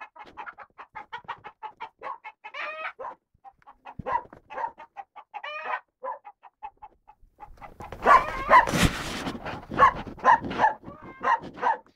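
Chickens clucking in a rapid run of short calls, with a few longer drawn-out squawks. Between about seven and a half and nine and a half seconds in, a rush of noise lies under louder calls.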